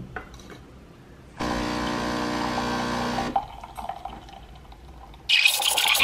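Breville espresso machine's pump hums steadily for about two seconds. Near the end the steam wand starts hissing loudly into a steel pitcher of milk, steaming it.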